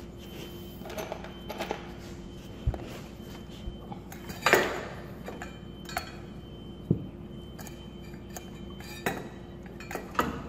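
Handling wires and plastic twist-on wire connectors in the metal wiring compartment of an electric baseboard heater: scattered small clicks and clinks, with a louder clatter about four and a half seconds in.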